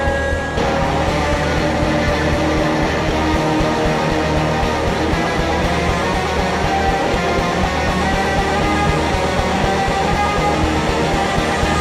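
Live rock power trio jamming: electric guitar, bass guitar and drums playing continuous, loud, hard-driving psychedelic rock.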